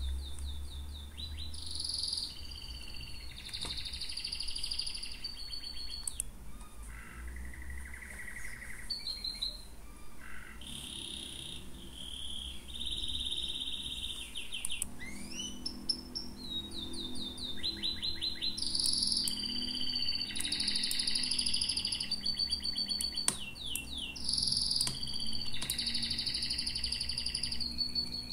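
Small birds chirping and singing, with quick trills of repeated notes, over a low steady hum.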